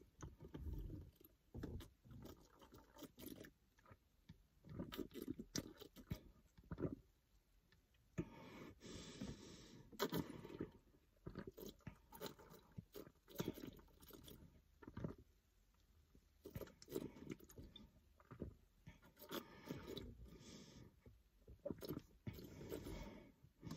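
Faint gulping and swallowing as a person chugs soda from a plastic bottle, in short, irregular runs of gulps, with a longer hiss about eight seconds in.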